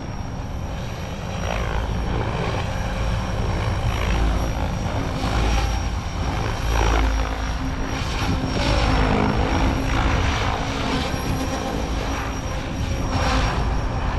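SAB Raw 580 electric RC helicopter in flight, its rotors whooshing and its motor whining. The sound swells and sweeps up and down in pitch again and again as the helicopter manoeuvres.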